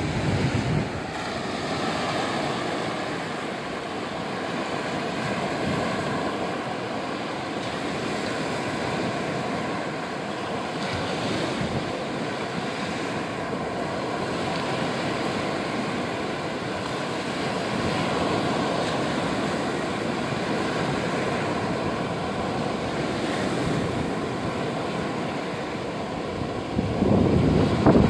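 Black Sea surf breaking and washing up a sandy beach, a steady rush of small waves, with wind buffeting the microphone that grows louder near the end.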